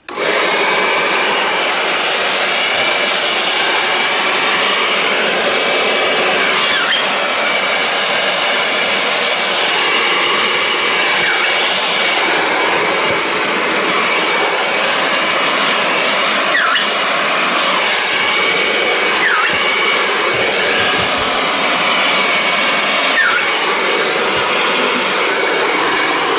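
Handheld hairdryer running steadily on a low setting: a continuous rush of air with a thin high whine, switched on at the start. It is blowing wet acrylic paint across a canvas to spread it.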